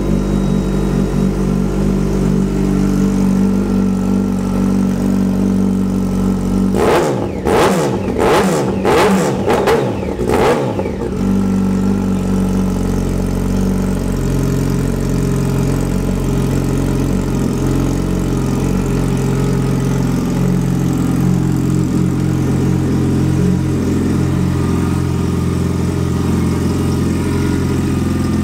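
Superbike engine idling through its exhaust, with a burst of four or five quick throttle blips, each rising and falling back, between about seven and eleven seconds in, after which it settles back to a steady idle.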